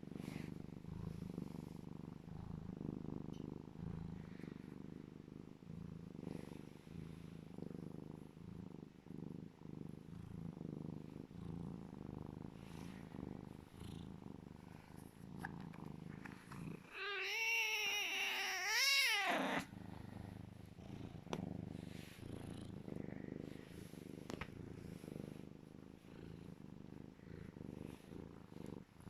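Serval cat purring loud in a steady low rumble, a contented purr. A little past the middle it gives one wavering, up-and-down call of a couple of seconds, the loudest sound, while the purring goes on.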